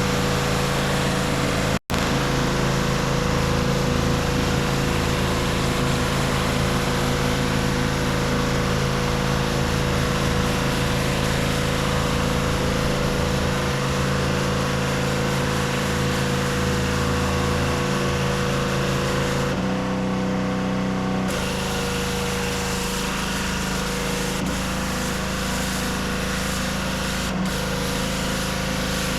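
Gas-engine pressure washer running steadily with the hiss of its water spray. The sound cuts out for an instant about two seconds in, and the spray hiss drops away for about two seconds around twenty seconds in while the engine keeps running.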